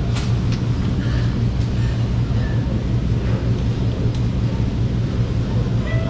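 Steady low hum of background noise in an airport check-in hall, with a few faint clicks.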